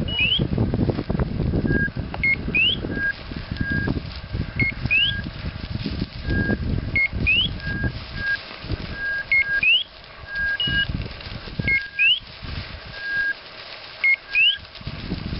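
Footsteps swishing through tall dry grass, loudest in the first half. Throughout, a two-part whistle repeats about every two and a half seconds: a short steady note, then a quick rising whistle, with scattered short lower notes between.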